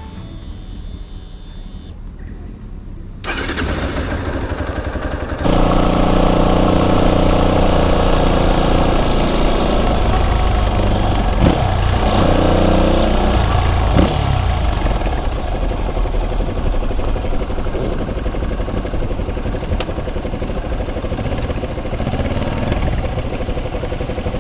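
Yamaha Serow 250's air-cooled single-cylinder engine running under way. It grows louder in two steps over the first six seconds, and its pitch rises and falls a few times around the middle.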